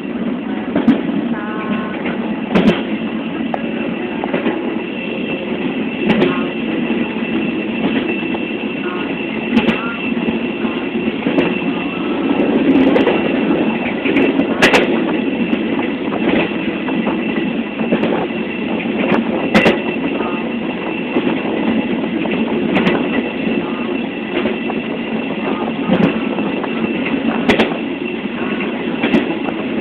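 Running noise of a moving train car: a steady rumble and rattle with a sharp clack from the rail joints every few seconds and a thin steady high whine. A man's voice is faintly audible underneath.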